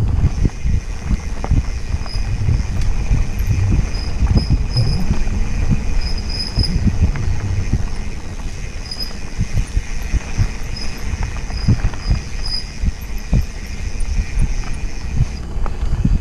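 Mountain bike rolling fast over a dirt singletrack: a dense low rumble of tyres and frame with many small knocks and rattles over bumps and roots. A faint steady high whine runs underneath and cuts off suddenly near the end.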